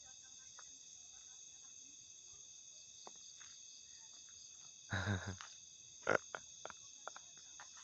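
Steady, high-pitched chorus of crickets and other night insects. About five seconds in there is a brief voice-like sound, followed by several sharp clicks.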